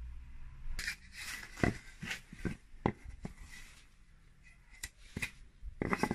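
A thick pine decking board handled and turned over by hand: irregular sharp knocks and clicks with rubbing and scraping between them.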